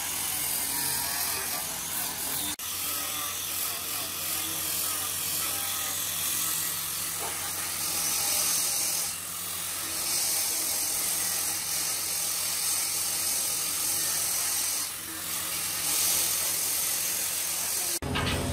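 Electric angle grinder with a sanding disc running and sanding wood, a steady high-pitched hiss over the motor's hum with brief dips as the disc is lifted and moved. Near the end it cuts off abruptly and a lower hum takes over.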